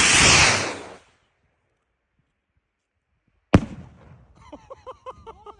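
A loud rushing hiss that dies away about a second in, then a gap of dead silence, then a single sharp bang from a Neon Banana firework rocket bursting, about three and a half seconds in. Faint voices follow near the end.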